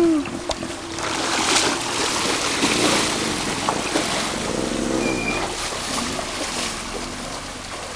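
River water rushing and splashing, a steady noisy hiss.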